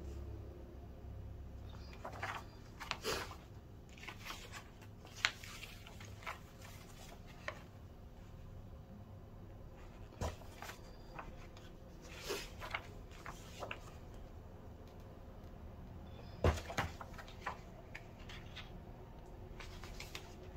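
Glossy paper instruction booklet being handled and its pages turned: scattered soft rustles and paper taps, with one louder knock late on.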